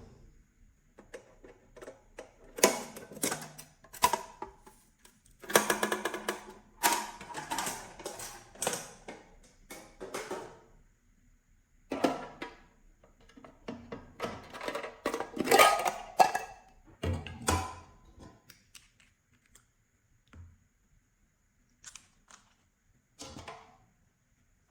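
Slime being squished and kneaded by hand, giving bursts of rapid wet crackling, clicking and popping with short quiet pauses between handfuls.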